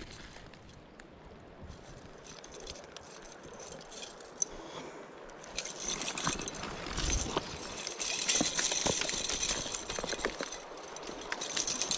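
Jacket fabric rustling and scraping over a body-worn camera's microphone, with light metallic clinks and rattles from a chain fish stringer. It grows louder and busier about halfway through.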